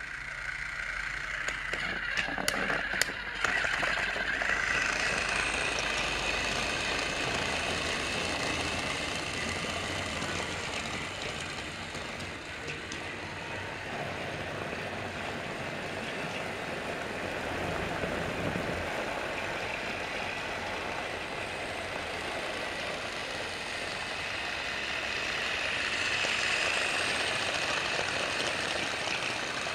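Battery-powered TrackMaster toy train running along plastic track: a steady motor whir with wheels rattling, getting louder near the end as it passes close. A few sharp clicks about two to three seconds in.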